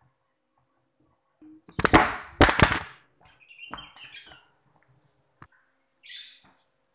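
A phone used as a camera falls over and clatters, with several loud sharp knocks about two seconds in. Fumbling handling noises and a click follow as it is picked up and stood back up.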